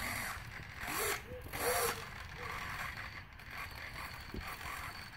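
Small hobby servos of a two-axis head-tracking camera mount whirring in short bursts as they pan and tilt the FPV camera, twice in quick succession about a second in, then more faintly.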